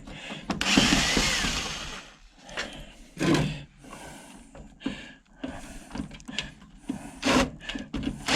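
A cordless drill-driver runs in one short burst about half a second in, its whine rising and then falling. Scattered clicks and knocks of screws and metal parts being handled follow.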